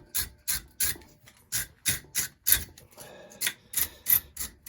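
A fouled spark plug being scrubbed clean with quick back-and-forth scraping strokes, about three a second, with a brief pause about three seconds in.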